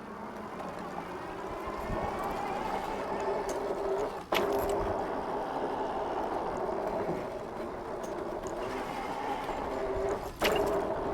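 Electric bike motor whining steadily under throttle over tyre and wind noise while riding. It breaks off sharply for a moment about four seconds in and again near the end.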